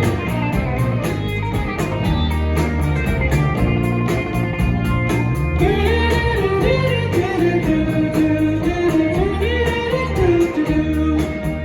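A rock band playing live, with a steady beat and a full band sound; a sliding lead melody comes in about six seconds in.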